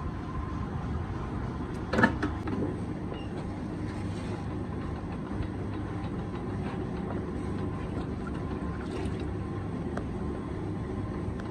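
Steady running rumble of a motor-driven potter's wheel spinning a large clay water-cooler body, with a single knock about two seconds in.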